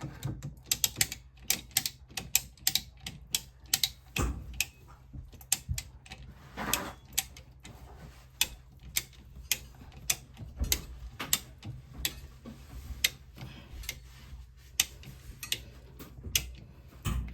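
Sharp, irregular metallic clicks and taps of hand tools working metal pipe clamps onto plumbing pipe, several a second, with a few louder knocks.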